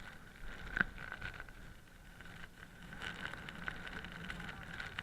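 Skis running over snow, with a low steady rumble and one sharp click about a second in.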